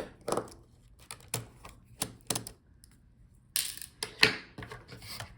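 Small clicks and taps of a screwdriver and tiny screws being worked on a laptop's plastic palmrest while the touchpad screws are taken out, with a brief scrape about three and a half seconds in and a sharp click just after.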